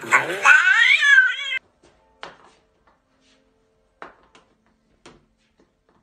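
A cat yowling loudly in long, wavering meows, cut off abruptly about one and a half seconds in. A few faint knocks follow.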